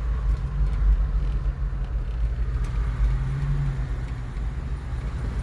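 Car driving along a road: a steady low engine hum with road rumble, picked up by a phone held out of the car window.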